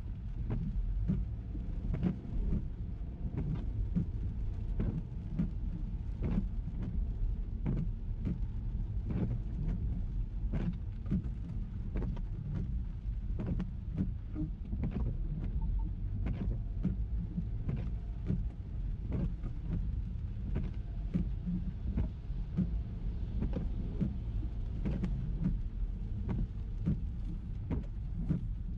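Ford EcoSport driving in the rain: a steady low road and engine rumble, with many irregular ticks of raindrops striking the car.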